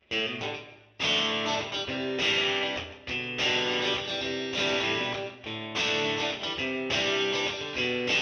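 Intro music: guitar strumming a run of chords with a steady beat.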